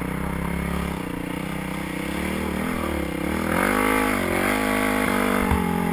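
Yamaha WR450F single-cylinder four-stroke dirt bike engine running under throttle, its revs dipping and rising several times with throttle changes and getting louder about halfway through.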